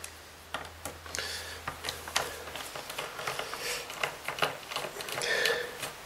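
Hand screwdriver turning out T20 Torx screws from a Kirby G4 vacuum's housing: irregular light clicks and ticks of the bit, screws and plastic casing as the screwdriver is turned and repositioned. A short squeak near the end.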